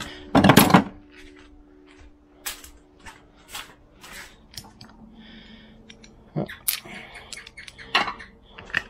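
Metal hand tools, a socket set and ratchet, clattering as they are dropped into a plastic tub, followed by scattered clicks and clinks of small metal parts being handled.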